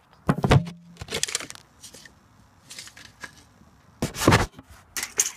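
Handling noise: a handful of short rustles and scrapes, with the loudest about four seconds in, as the camera and paper sketch are moved about.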